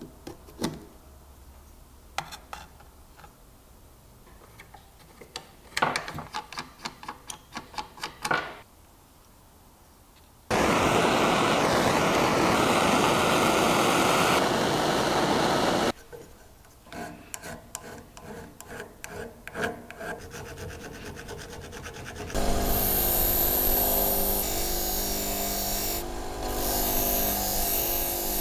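Hand work on metal parts: clicks and a run of scraping and rubbing strokes. Then a gas torch hisses steadily for about five seconds while brazing a ring with filler wire, followed by more rubbing strokes. Near the end a bench grinder's buffing wheel runs with a steady hum as a metal ring is polished against it.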